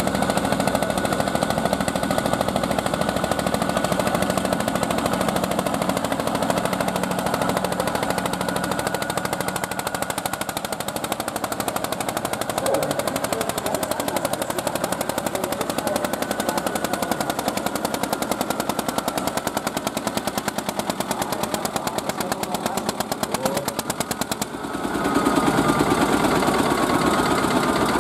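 Single-cylinder tractor diesel of 1.3 litres and 15 PS running under load as it pulls the weight sled, a rapid, steady pounding knock. Shortly before the end the sound dips briefly, then comes back louder.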